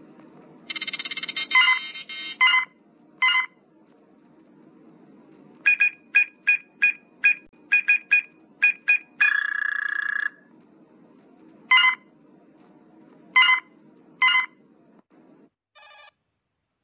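Star Trek LCARS-style computer interface sound effects from a phone launcher theme. A warbling computer chirp and a couple of beeps are followed by a quick run of about a dozen short keypad beeps as an access code is entered. Then come a longer warbling tone, three single beeps spaced about a second apart, and a short chirp near the end.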